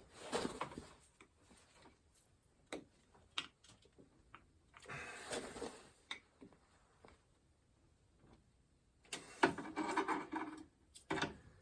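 Small clicks and scraping as a little screwdriver and fingers work at a plastic wiring connector, prying it loose. The scrapes come in three short patches, with single clicks in between.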